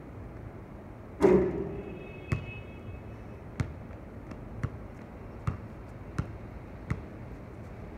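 A basketball shot strikes the metal rim with a loud clang that rings for nearly a second, about a second in. The ball then bounces on the hard court six times, the bounces coming gradually closer together.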